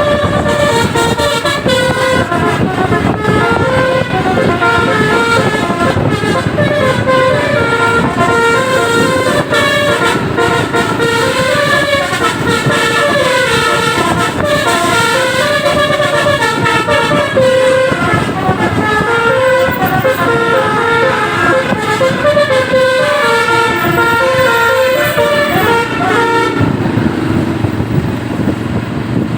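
Bus-mounted Basuri telolet horns, multi-tone trumpet horns, playing quick stepping melodies, tune following tune, over the rumble of the buses. The horns cut off suddenly shortly before the end, leaving engine and road noise.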